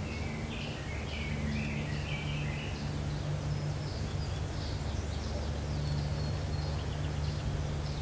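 Woodland songbirds chirping, with a run of busier calls in the first few seconds, over a steady low hum.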